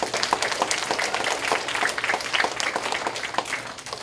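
A roomful of schoolchildren applauding, many hands clapping at once, thinning out near the end.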